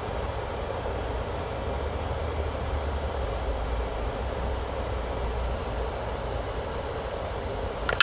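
Steady hiss with a low rumble from a 1500-watt electric immersion heater in a 5-gallon bucket of water at about 160°F, the water seething around the hot element short of a full boil.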